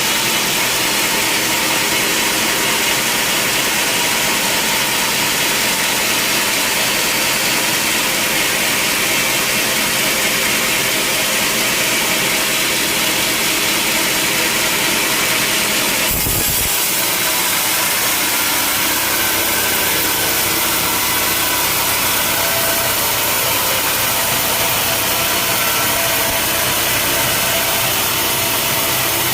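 Sawmill saw cutting through a heavy log over the steady noise of its engine. The sound changes abruptly a little past halfway.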